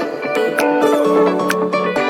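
Background music: plucked-string guitar with a steady beat.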